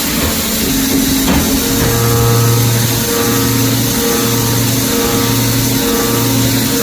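CNC milling machine cutting hardened steel (58 HRC) with a 4 mm end mill. A steady machine hum over a constant hiss; the hum drops out and resumes about once a second.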